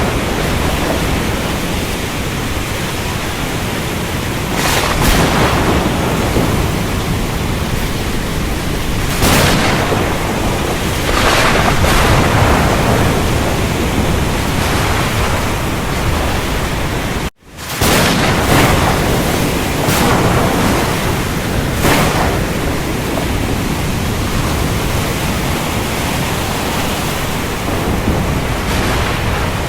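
Steady, heavy rain hiss with several loud thunder claps and rolls breaking over it. About two-thirds of the way through the sound cuts out for a split second and comes straight back.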